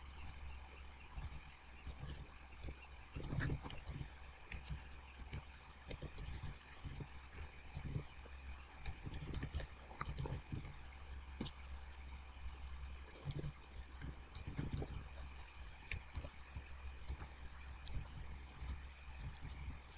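Computer keyboard typing: irregular key clicks in quick runs with short pauses.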